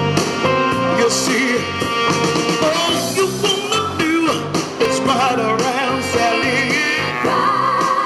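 A woman singing soul/R&B with wavering vibrato into a handheld microphone, amplified over a continuous musical backing track.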